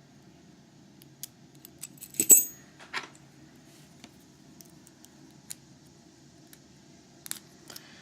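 Small metal lock parts and tools clicking and clinking as they are handled, with a sharp ringing clink a little over two seconds in and a softer one about a second later.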